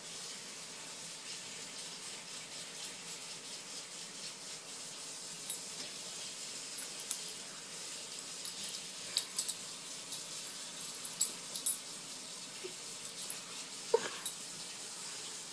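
Dogs moving about after a bug: scattered faint clicks and taps over a steady background hiss, with one brief squeak about fourteen seconds in.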